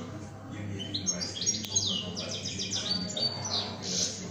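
European goldfinch singing: fast twittering with quick downward-sliding notes, picking up about a second in, over a low steady hum.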